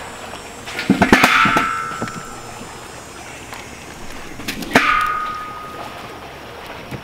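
Firewood logs set down on a fire in a steel fire-pit bowl: a cluster of knocks about a second in and another near five seconds, each clanging against the metal with a ringing tone that fades over about a second.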